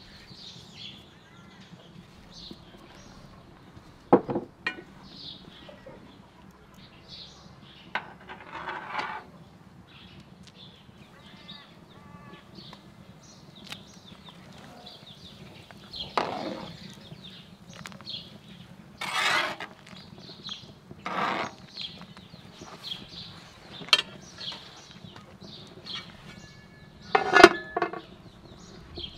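Sporadic clinks and scrapes of a metal ladle and utensils in a large pot of soup, with birds chirping throughout. The loudest sound, near the end, is the metal lid clanking down onto the pot and ringing briefly.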